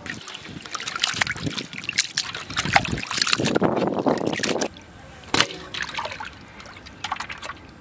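Water splashing and sloshing in a container, with scattered clicks and knocks, and a denser rush of water for about a second midway.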